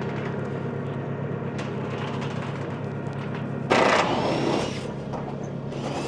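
Diesel engine of a construction machine (loader or digger) running steadily, with a louder, noisier surge about four seconds in lasting about a second.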